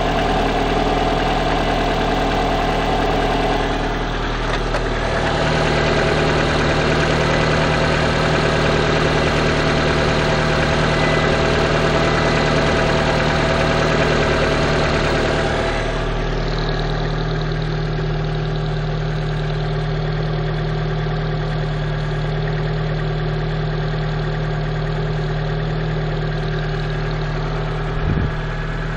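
Lada Priora's 1.6-litre 16-valve VAZ-21126 engine idling cold with a knock that the owner takes for piston knock, typical of a cold engine and said to fade as it warms. The tone of the running engine shifts about five seconds in and again a little past the middle.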